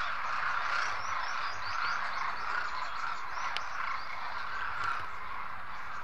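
A flock of demoiselle cranes calling in flight: many croaking calls overlapping into a continuous chorus.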